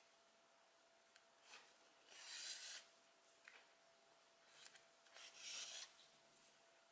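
Faint rubbing swishes of acrylic yarn being pulled through crocheted stitches behind a sewing needle, twice, about two and five seconds in, with a few small ticks of the needle and fabric being handled.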